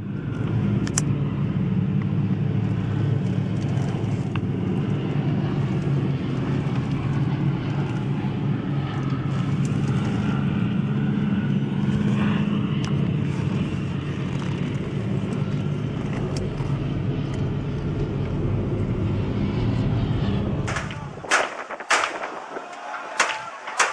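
Steady road and engine rumble of a moving car. About twenty seconds in, the rumble cuts off and a run of sharp cracks or knocks follows.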